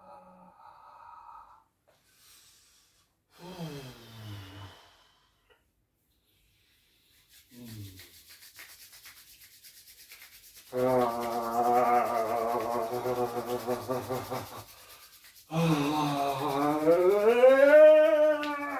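A man's voice letting out wordless sounds: a falling sigh, then two long, loud open-mouthed tones, the last rising and falling in pitch, as a release of tension. Under them his palms rub briskly together with a dry, steady rasp.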